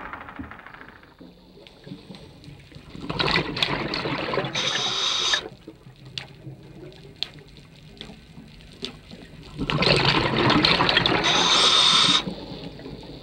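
Scuba breathing through a regulator underwater: two breaths about six seconds apart, each a rush of bubbles ending in a higher hiss, with faint clicks between.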